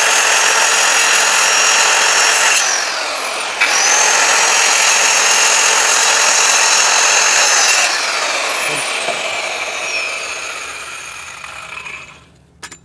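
Electric hand cutter, a small handheld circular saw, running at full speed as it cuts along a marked line in an MDF board. Its whine drops briefly about three seconds in and spins back up, then the motor is switched off about eight seconds in and winds down with a slowly falling whine.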